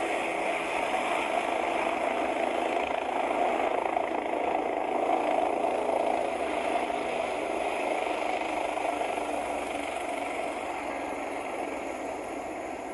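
Dubbed-in engine sound effect running steadily, fading gradually over the last few seconds.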